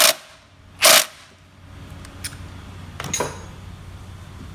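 Cordless 3/8-inch ratchet (Milwaukee M12) given two short trigger bursts about a second apart as the 17 mm motor mount bolt snugs down tight, followed by a couple of faint clicks.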